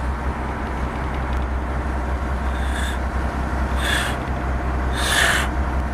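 Fishing boat's engine running with a steady low hum. Three short hissing bursts come about a second apart in the second half.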